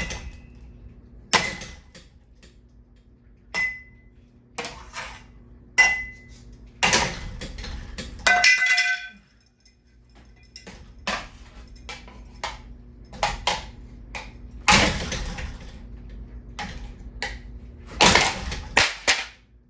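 A ceiling fan being smashed apart: irregular loud metallic bangs and clanks, about a dozen, some ringing briefly, over a steady low hum.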